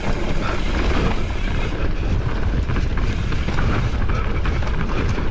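Mountain bike descending a rough trail: tyres rolling over dirt and rock with a constant clatter of the bike over bumps, and wind rushing over the microphone.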